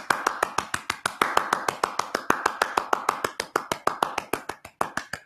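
A hand tapping out a fast, even beat of sharp taps, about seven a second, imitating the tempo of a shamanic drumbeat, which is faster than a heartbeat.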